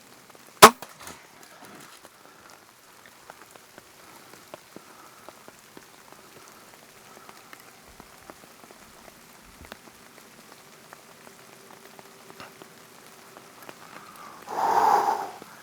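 A crossbow fires with a single sharp snap about half a second in, followed by steady rain pattering. A louder sound of about a second comes near the end.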